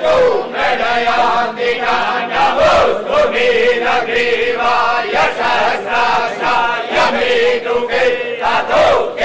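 Men chanting ritual mantras together in a continuous, level recitation, as at the tilak rite of a royal coronation.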